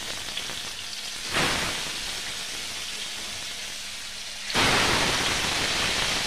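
Pieces of pangas fish sizzling in hot oil in a pan. The sizzle steps up about a second in and again, more loudly, about four and a half seconds in, as more pieces are laid into the oil.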